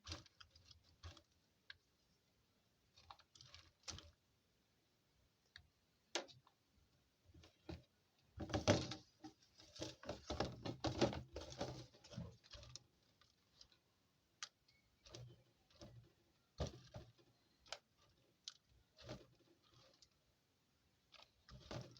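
Dried omena (small dried fish) being picked through by hand: faint scattered clicks and dry rustling, with a denser run of rustling through the middle.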